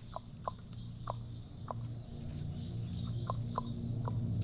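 An animal's short, sharp calls, about seven of them at an uneven pace with a pause in the middle, over a low steady hum that grows louder toward the end.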